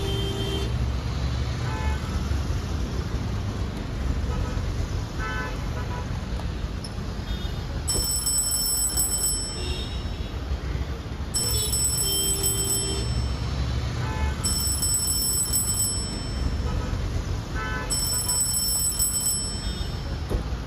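City street traffic: a steady rumble of engines with frequent short car-horn toots. From about eight seconds in, a high-pitched electronic tone sounds for a second or so, repeating every three seconds or so.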